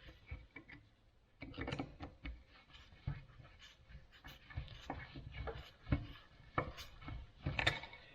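Light clicks, taps and scraping of metal vise parts being handled as a new screw is fitted into a threaded hole in the bench vise body.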